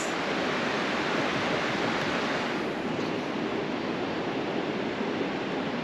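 River water rushing and babbling in a steady, even wash.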